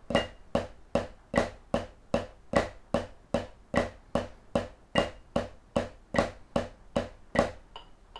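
Snare drum played with sticks in a slow, steady triplet rhythm of about two and a half strokes a second: the Swiss Army triplet rudiment with a flam on the first note of each group, at quarter note = 50.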